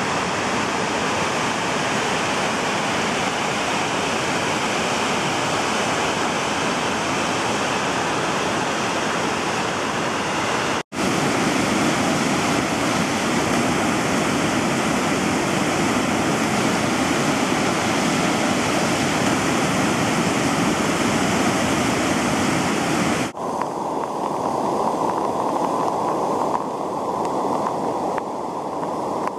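Steady rushing of a creek in flood, churning whitewater rapids. It breaks off for an instant about eleven seconds in and again about twenty-three seconds in, and after the second break the rush is duller, with less hiss.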